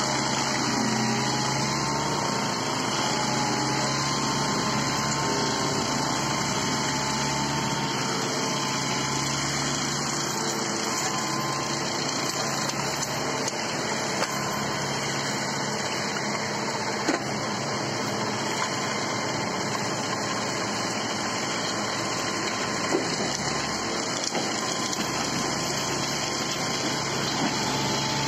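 REMET F3-175 forestry mulcher on a compact tractor running steadily under the tractor's engine as its rotor shreds willow and reed stems, with a constant whine and a few short sharp cracks from wood being chewed up.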